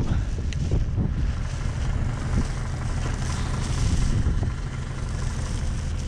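Wind from a snowstorm buffeting the microphone, over the steady low rumble of idling diesel truck engines.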